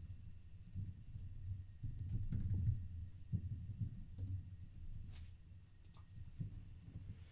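Typing on a computer keyboard: irregular keystrokes.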